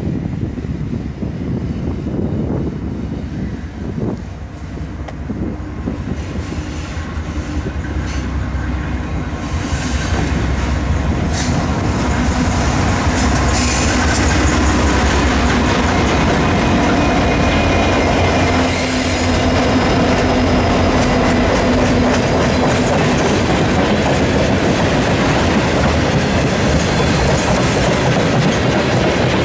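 A diesel-hauled freight train approaches and passes. Its locomotives grow louder over the first ten seconds or so and go by, then the freight cars roll past steadily on the rails.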